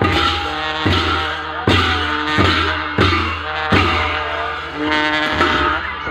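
A Nepali traditional folk band playing: large barrel drums beaten in a heavy, steady beat, about one stroke a second, under wind instruments holding long notes.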